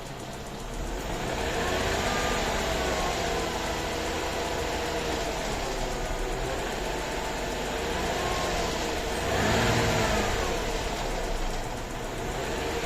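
Mercedes-Benz M112 2.6-litre V6 engine running and being revved up and back down, once around a second or two in and again, louder, at about nine and a half seconds. The engine is being recorded for a knock (стук).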